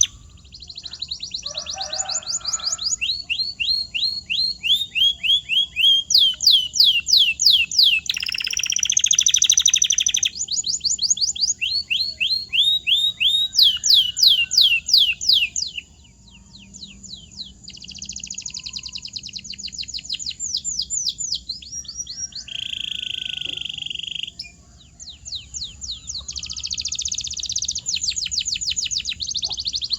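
Domestic canary singing a long song of fast repeated phrases: rapid trills of quick sweeping notes, each phrase lasting a second or two before switching to a new one. The song pauses briefly about halfway through and again a little later.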